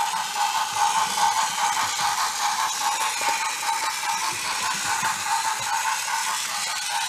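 Small electric motor and gearbox of a battery-powered toy locomotive whirring steadily as it runs along wooden track, with a light rattle of wheels and gears.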